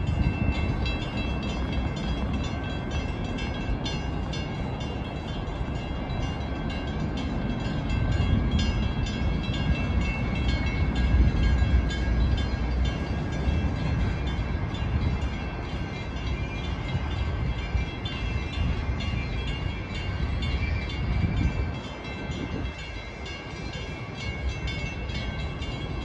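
A train rumbling past, with several steady high whining tones over a deep rumble. Loudest about a third of the way through, easing off near the end.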